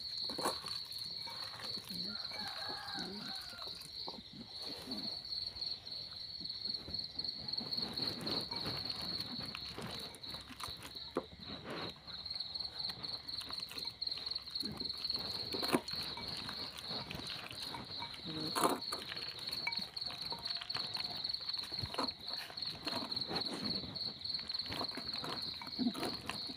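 Crickets chirping in a steady, high, unbroken trill. Over it come scattered soft clicks and knocks from a hand mixing food in a bowl.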